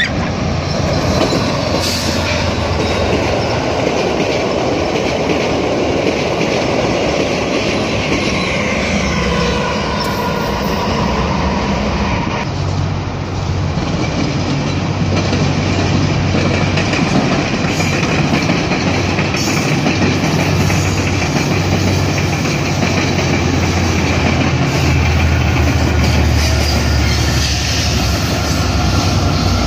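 A VIA Rail passenger train passing behind its diesel locomotive, with engine noise and wheels running over the rails. About twelve seconds in, it cuts to a GO Transit bi-level train passing. The low hum of its EMD F59PH diesel locomotive grows louder near the end as the locomotive goes by.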